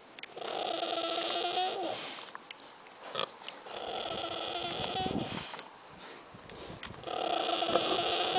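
Sleeping micro pig snoring: three long snores, one about every three seconds.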